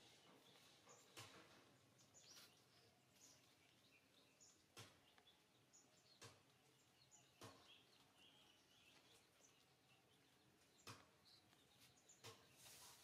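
Near silence: faint room hiss with scattered short, high chirps and a few soft clicks.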